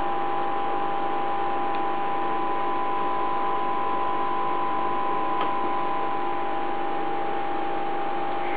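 Aquarium equipment running with a steady hum made of a few held tones over an even hiss.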